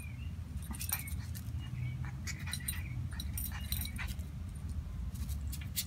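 Miniature schnauzer puppies scuffling in play, with a few faint, brief whimpering squeaks and scattered light clicks and jingles.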